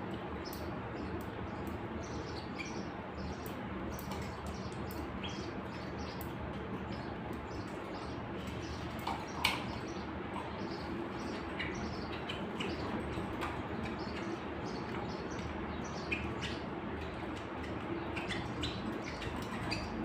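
Domestic canaries in a wire cage giving short, scattered chirps over a steady background hum, with faint clicks throughout and one louder, sharper sound about halfway through.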